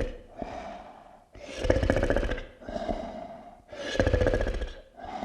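Monster snoring sound effect: deep, rattling snores alternating with softer, droning breaths in a steady cycle of about two and a half seconds, two loud snores in all.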